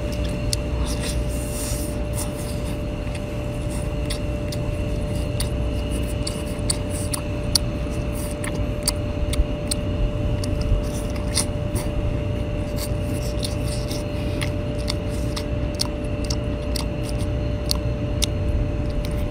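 Close-up eating sounds of a cooked mini octopus being pulled apart with the fingers and chewed: a run of short wet clicks and smacks, more frequent in the second half, over a steady low rumble and a constant hum.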